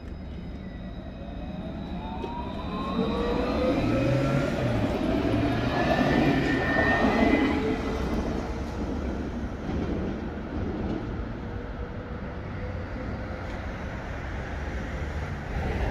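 Alstom Citadis tram of line T3b accelerating past at close range: its electric traction motors give a whine that rises in pitch as it picks up speed, over a low rolling rumble. It is loudest about halfway through as it goes by, then fades.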